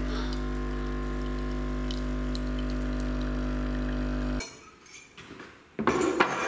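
Capsule coffee machine's pump humming steadily as it brews coffee into a mug, cutting off suddenly a little over four seconds in. Near the end, a short clatter as the ceramic mug is set down on a table.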